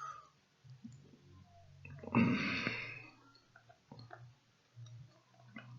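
A small electric screwdriver motor humming in short on-off runs while removing the laptop screen's four screws, with light clicks. About two seconds in there is a louder, noisy rustling burst.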